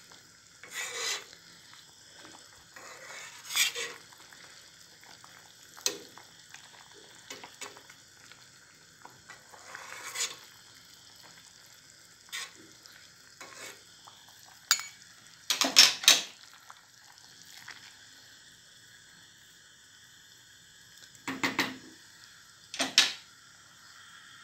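Metal spoon clinking and scraping against a stainless-steel pot while skimming foam off boiling red lentil soup, over the steady hiss of the boil. The clinks come every few seconds, loudest about sixteen seconds in, with two more near the end.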